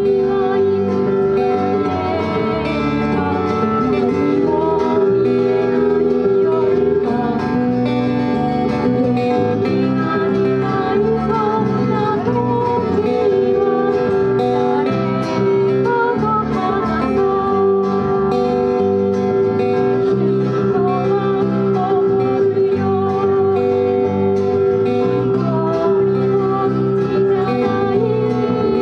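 A live band plays a song: acoustic guitars strum over an electric bass, and a woman sings the melody into a microphone through a PA.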